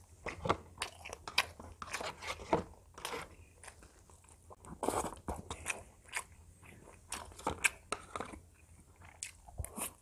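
Close-miked biting and chewing of spicy glazed fried chicken: irregular sharp crunches, with a longer, louder crunch about halfway through.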